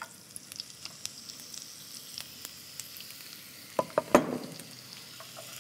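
Carrot strips tipped into hot oil in a frying pan, sizzling and crackling. About four seconds in, a few loud knocks with a short ring, the loudest sound here.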